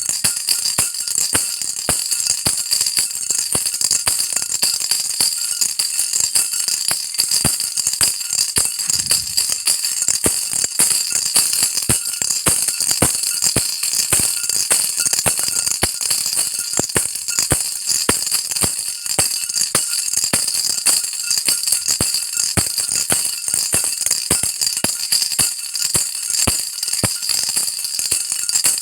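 Baby rattle shaken continuously, a fast, uneven stream of small rattling clicks with most of the sound high-pitched and hissy.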